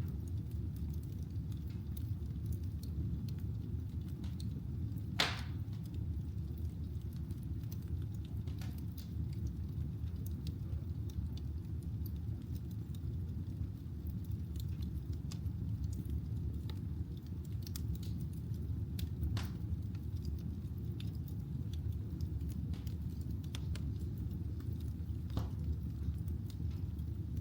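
Firewood burning in a fireplace: a steady low rumble of the fire with a few sharp pops and crackles, the loudest about five seconds in.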